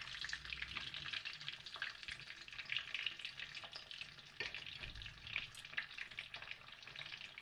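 Faint, steady sizzling and crackling of food frying.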